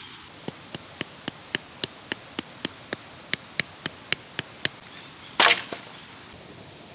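A run of about sixteen quick, even chopping strikes, roughly four a second, then one louder crack near the end.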